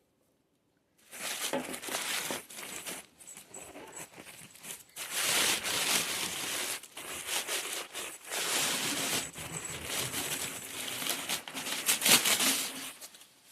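Packing material being crinkled, rustled and pulled away by hand as a wrapped figure is unpacked from its shipping box, with a sharp crackle near the end.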